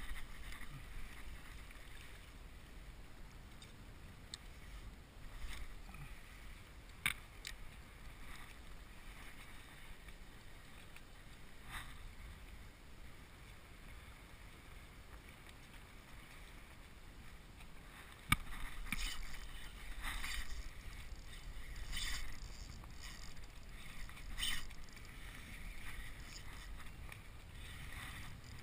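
Choppy water lapping against a kayak's hull with a low wind rumble, while a Penn Battle spinning reel is cranked on the retrieve. A few sharp knocks and clicks come through, the loudest about 18 seconds in, and after it the water sounds are busier.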